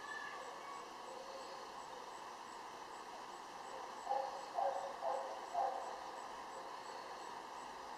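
A dog barks four times, about half a second apart, over a steady outdoor background hiss.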